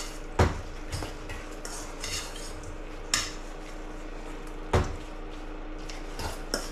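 A metal utensil stirring shredded chicken in barbecue sauce in a stainless steel bowl: soft scraping, with several sharp clinks against the bowl. The loudest clinks come about half a second in and just before five seconds.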